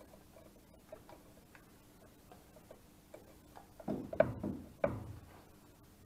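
Hand-pumped oil can being worked, its trigger clicking as oil is squirted at a drill bit, with light handling clicks. Faint scattered ticks at first, then a louder cluster about four seconds in with two sharp clicks about half a second apart.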